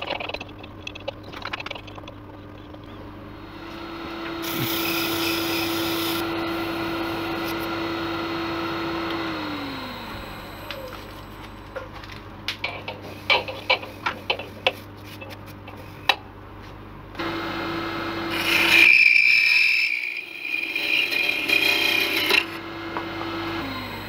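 Laguna 1836 wood lathe running and winding down twice while a small resin-stabilised masur birch blank is drilled and cut. A steady motor hum comes in about four seconds in with a hissing cut, and falls in pitch as the lathe winds down about ten seconds in. Scattered tool clicks follow, then a louder hissing cut with the hum back on, which falls in pitch again near the end.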